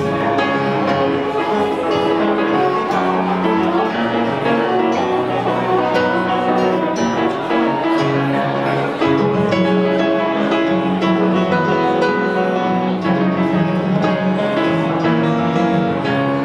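Instrumental trio of kemençe, grand piano and classical guitar playing a piece, with sustained bowed lines over plucked guitar notes and piano.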